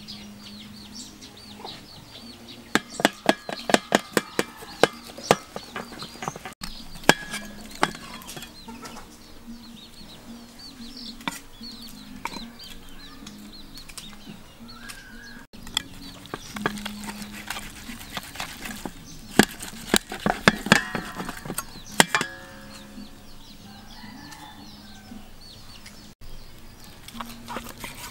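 Knife chopping cooked pork on a wooden chopping board: runs of sharp knocks of the blade on the wood, several a second, with pauses between the runs. Chickens cluck in the background.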